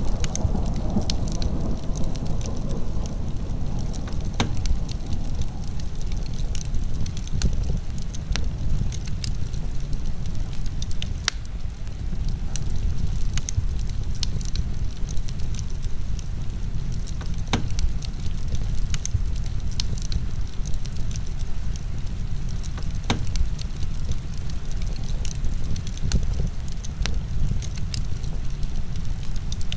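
Wood fire crackling, with scattered sharp pops and snaps over a steady dense rush of heavy rain.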